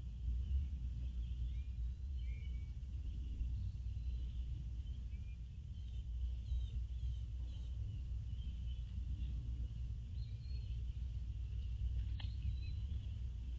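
Steady low rumble of wind on an outdoor nest camera's microphone, with scattered faint bird chirps and one sharp click near the end.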